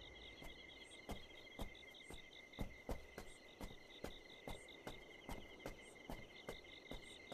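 Crickets chirping steadily, with soft footsteps on stone paving, about two steps a second, standing out above them.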